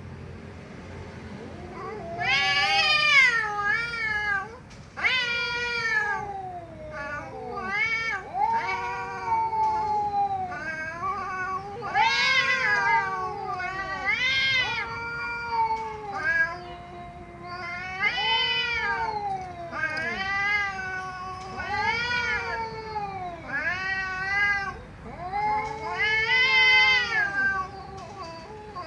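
Domestic cat meowing over and over, one call every second or two, each rising then falling in pitch.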